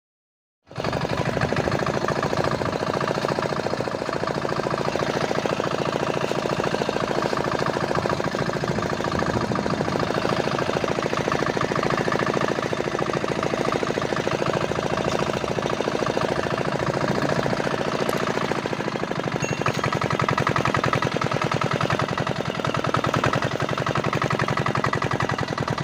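Boat engine running steadily, with a rapid, even chugging beat.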